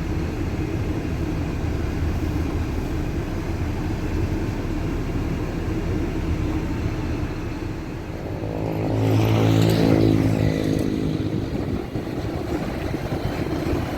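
Steady vehicle engine rumble. From about eight seconds in, one vehicle's engine grows louder as it passes close, peaks around ten seconds and fades away by about eleven.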